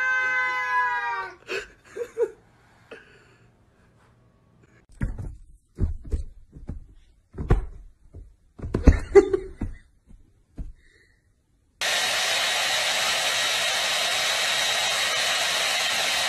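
A cat's drawn-out yowl at the start, followed by scattered thumps and knocks for several seconds. From about twelve seconds in, a steady whooshing noise with a faint whine takes over.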